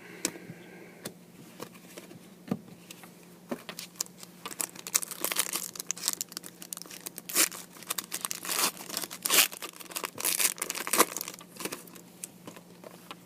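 Trading-card pack wrapper being torn open and crinkled by hand. The crackling is sparse at first, grows dense and loud from about four seconds in, and dies away near the end.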